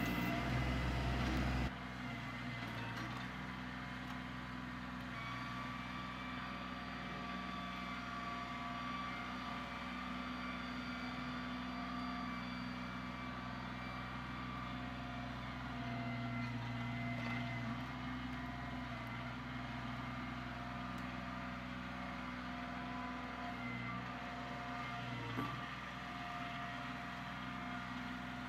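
Kioti CK25 compact tractor's three-cylinder diesel engine running steadily. It is louder for the first second and a half, then drops to a lower, even running level with small swells.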